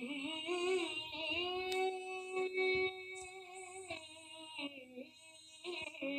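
A single voice singing an Urdu naat unaccompanied, drawing out long held notes that bend and waver between words of the verse.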